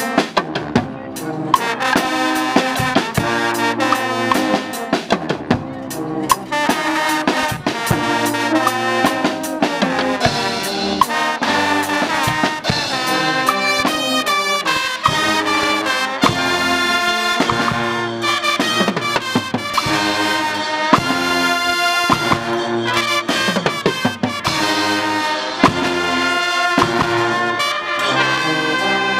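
A Guggenmusik band playing live: trumpets, trombones and sousaphones playing together over a drum kit and cymbals, with a steady beat.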